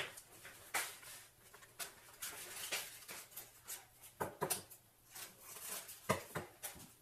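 Kitchenware being handled at a counter: a string of irregular clinks, knocks and scrapes, with a few louder knocks about four seconds in and again near the end.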